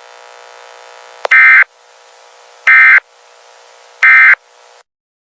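Three short EAS end-of-message data bursts, each a brief loud warbling digital tone, about a second and a half apart. Under them runs a faint steady buzz that cuts off shortly before the end.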